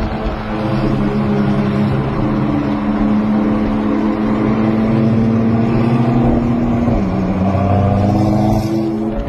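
McLaren 720S twin-turbo V8 through an ARMYTRIX valvetronic exhaust, running at low speed with a steady deep drone that drops in pitch about seven seconds in.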